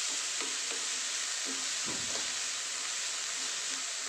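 Chopped onions, green chillies and curry leaves sizzling steadily in hot coconut oil in a steel pan, stirred with a wooden spatula with a few faint scrapes: onions being sautéed until soft.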